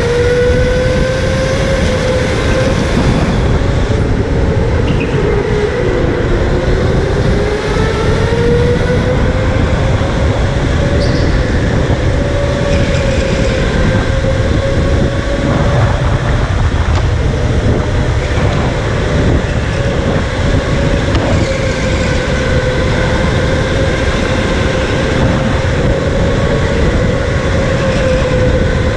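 Electric go-kart's motor whining as the kart is driven hard, its pitch dipping as it slows about six seconds in and climbing again as it speeds up. Under it runs a heavy low rumble of wind and road noise on the helmet-mounted camera.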